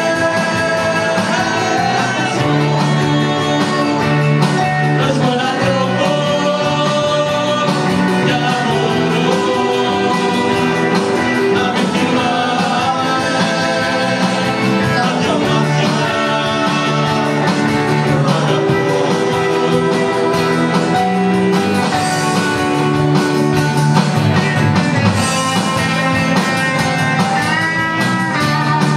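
Live band playing a rock song on guitars and keyboard, with some singing over it.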